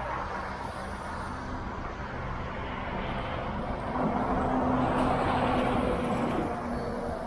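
Road traffic noise with motor vehicle engines running. One vehicle gets louder about four seconds in and eases off near the end.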